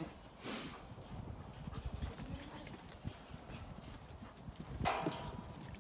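Zwartbles sheep jostling and feeding at a trough: scattered soft knocks and shuffling of hooves, with a brief louder sound near the end.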